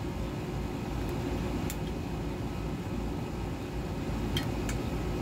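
Outdoor air-conditioner condenser unit running with a steady low hum and fan noise, with a few light clicks over it.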